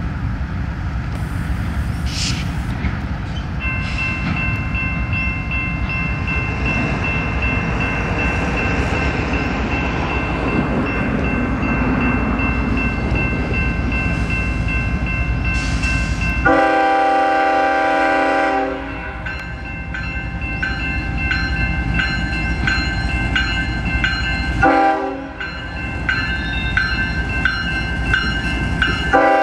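CSX diesel locomotive at the head of a freight train, engine and wheels rumbling under a steady horn chord that starts a few seconds in. About sixteen seconds in a louder, fuller horn blast sounds for a couple of seconds. It is followed by a regular ringing and shorter horn blasts near the end.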